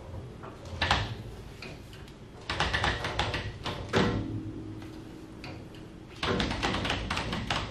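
Floor jack and jack stands being worked to raise a truck's front end: three spells of rapid clicking, about a second in, from about two and a half to four seconds, and again from about six seconds on.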